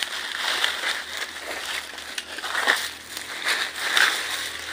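Footsteps crunching through dry fallen leaves, an irregular crunch about once a second.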